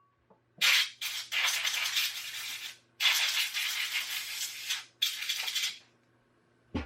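Compressed air blasted in three long hissing bursts at a dusty laptop cooling fan.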